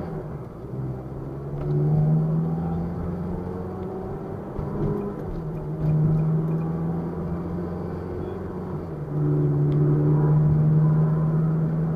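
Car engine and road noise heard from inside the cabin while driving. The engine's low note gets louder about two, six and nine seconds in as it pulls and is held under load between easings.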